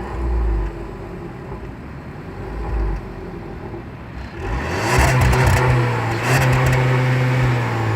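Turbocharged Skoda car engine at low revs, then revved hard from about four seconds in. The pitch climbs and then holds flat at high revs to the end, which is typical of sitting on the rev limiter.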